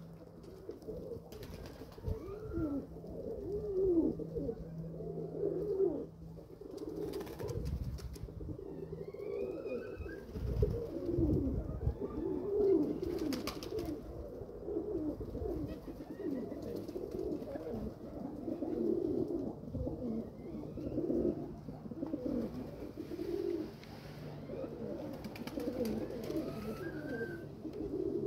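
Domestic pigeons cooing over and over, the low coos overlapping almost without a break.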